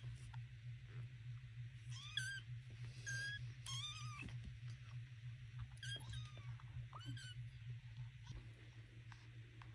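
Young kittens mewing: about six short, high, thin mews in the first seven seconds, thinning out near the end. A steady low hum runs underneath.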